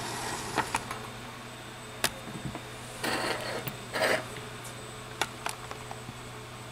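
Handling noise at a workbench: scattered light clicks and two brief rustles over a steady low hum.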